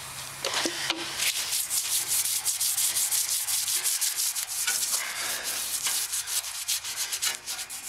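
Coarse green abrasive pad scrubbed rapidly back and forth over a wet steel truck bumper with Diet Coke, a quick run of scratchy rubbing strokes as it scours off surface rust and grime.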